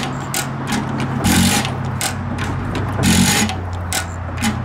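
1916 Galloway single-cylinder stationary gas engine running, with a steady low mechanical hum and a loud exhaust bang about every two seconds, twice in these seconds. Its fuel needle valve is being turned to set the mixture so it fires well without black smoke.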